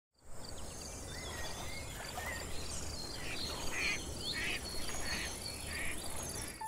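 Outdoor nature ambience: birds chirping and calling, with four short, harsh calls in quick succession in the second half, over a steady high insect drone and a low rumble.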